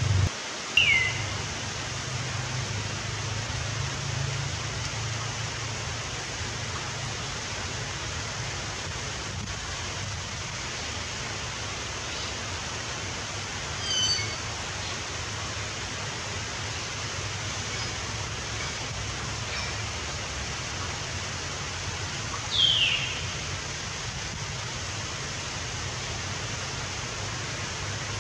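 Steady rushing noise with a few short chirps that fall in pitch, one about a second in and another later on.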